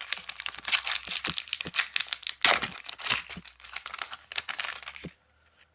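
Foil booster-pack wrapper crinkling and tearing as it is ripped open, a dense run of crackles that stops about five seconds in.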